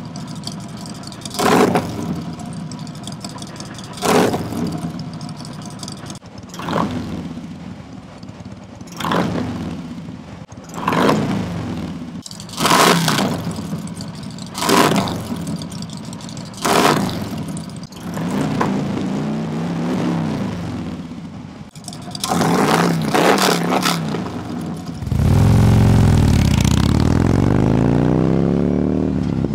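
A Harley-Davidson Road Glide Special's V-twin is blipped at the throttle about every two seconds, with one longer held rev, through Vance & Hines Titan 450 OS slip-on mufflers that have the fiberglass packing removed and only the steel baffles left in. Near the end the same bike, with the packing still in, is heard riding off under acceleration, its engine pitch sweeping through the gears.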